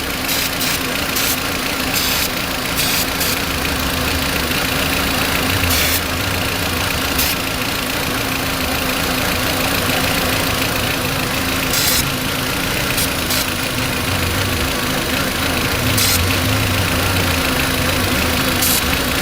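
Volkswagen Beetle engine idling roughly from a vacuum leak at the brake booster, with short hissing bursts of carburetor cleaner sprayed now and then onto the vacuum fittings. Where the cleaner is drawn in through a leaking fitting, the idle revs up a little.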